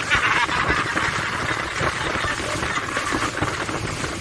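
Small speedboat under way at speed: a steady rush of wind and water with the boat's motor running.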